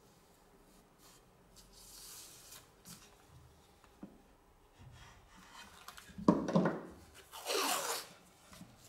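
Hands rubbing and smoothing masking tape down onto a plywood part, then masking tape pulled off its roll in two loud ripping pulls near the end, the second falling in pitch.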